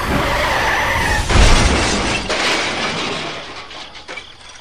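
Crash of a miniature toy tractor slamming into a toy train: a sudden loud smash with a deep thump about a second and a half in, after a brief high squeal, then the noise dies away over the next few seconds.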